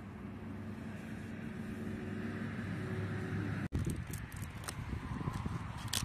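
A steady low droning hum. After an abrupt cut about three and a half seconds in, there is crackly rustling and tearing as thin, dry flatbread is torn by hand.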